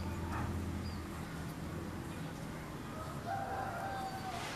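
A bird calling in the background: one drawn-out call of about a second, about three seconds in, after a faint short chirp near the start. A low steady hum runs underneath.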